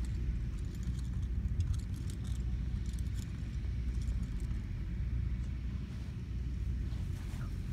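Wind buffeting the phone's microphone: a steady, uneven low rumble, with faint light clicks and jingles over it.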